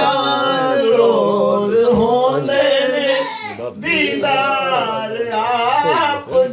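Men singing a Punjabi naat, a devotional song in praise of the Prophet, with a steady held note under the melody.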